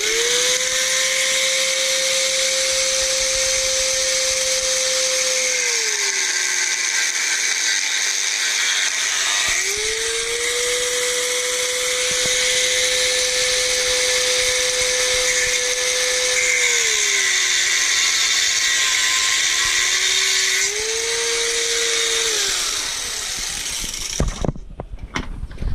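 Small high-speed electric power tool running continuously. Its whine sags in pitch and picks up again several times as it comes under load. It stops near the end.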